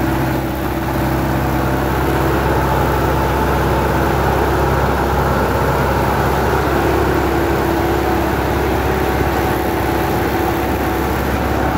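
Sonalika 75 HP tractor's diesel engine running steadily under load, pulling a rotavator through the soil, heard from the driver's seat.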